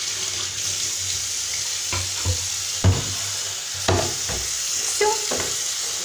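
Tap water running steadily and splashing onto the plastic dust container and pleated filter of a Midea VCC34A1 bagless vacuum cleaner as they are rinsed clean, with several sharp knocks of the plastic parts being handled from about two seconds in.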